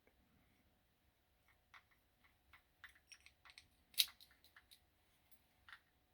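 Light clicks and taps of small metal parts being handled: a car door lock cylinder and its key. There are about a dozen irregular clicks, with one sharper click about four seconds in.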